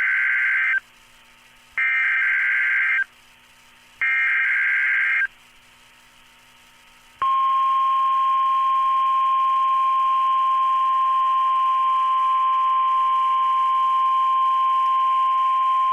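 NOAA Weather Radio alert signalling. The end of one SAME data burst and two more, each a buzzy burst about a second long at even spacing, then a short pause. About seven seconds in, the single steady 1050 Hz warning alarm tone starts and holds. This tone marks a warning-level alert, here a hurricane warning.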